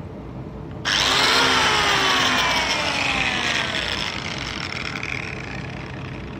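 Angle grinder starting with a sudden loud whine whose pitch falls over about three seconds, then fading back to a low hum.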